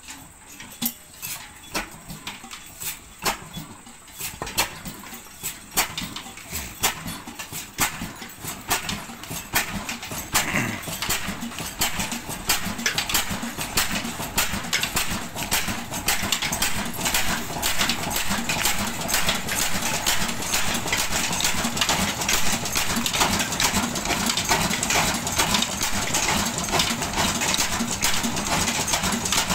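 Old Ruston Hornsby single-cylinder horizontal diesel engine being hand-cranked into life: slow, evenly spaced knocks about once a second at first, then from about ten seconds in it fires and picks up speed into a fast, steady beat that grows louder.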